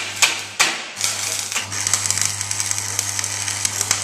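Three quick strikes, then from about a second in the steady hiss and crackle of electric arc welding over the welder's low, even hum.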